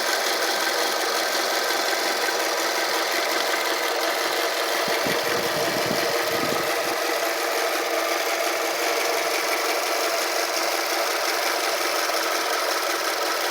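2005 Toyota RAV4 engine idling steadily, warmed up after about ten minutes of running, with the engine noise that the owner is trying to track down.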